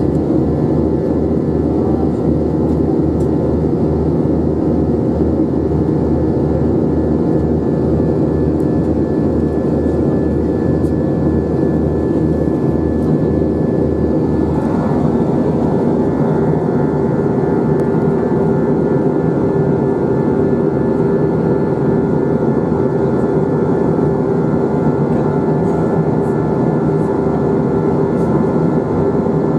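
Airbus A321 cabin noise in flight: the steady drone of the jet engines and the rushing airflow, heard from inside the cabin. A low pulsing under the drone fades out about halfway through.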